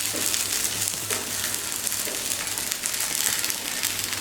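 Ragi rava dosa frying in oil on a hot tawa: a steady sizzling hiss with fine crackles.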